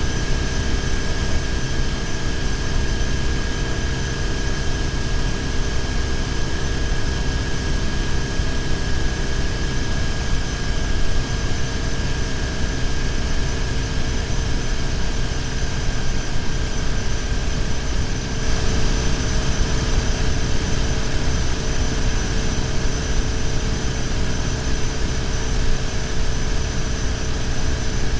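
BMW R1150GS's air/oil-cooled flat-twin boxer engine running steadily at highway cruising speed, under continuous wind and road noise on the bike-mounted camera's microphone.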